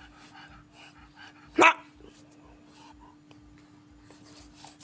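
French bulldog giving a single short bark about one and a half seconds in.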